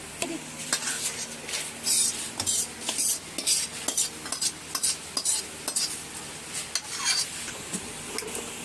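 Spoon or ladle stirring and scraping mutton frying in a metal cooking pot, in irregular strokes about once or twice a second, with a steady sizzle of the frying underneath.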